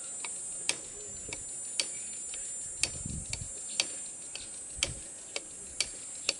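Pincers used as a hammer striking a knife held point-down on an ostrich eggshell, to chip a small hole in the shell. The strikes come as sharp taps about once a second, with fainter taps between.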